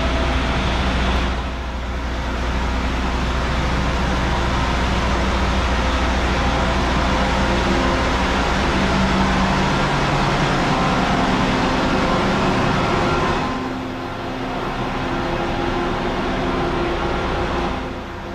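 Road traffic: a motor vehicle's engine running close by, a steady hum and low rumble that eases briefly a couple of times.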